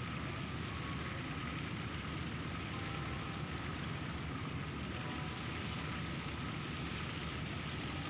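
Steady low rumble of a boat engine running, without a break.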